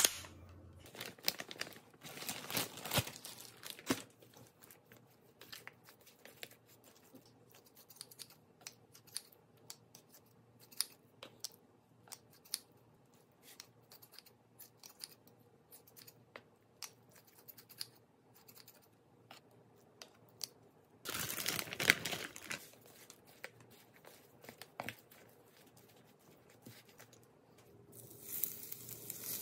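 Kitchen handling sounds: a snap-lock lid clicking onto a glass food container, then scattered small clicks and rustles of tongs and containers, with a loud crinkling rustle about twenty seconds in. Near the end raw chicken starts to sizzle as it goes into a hot stainless steel pan.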